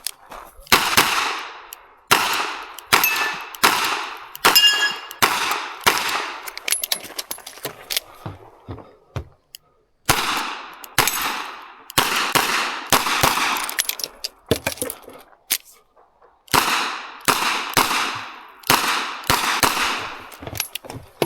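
Revolver shots fired in quick strings, each a sharp crack with an echoing tail, broken by two short pauses. A steel target rings briefly after a hit about four and a half seconds in.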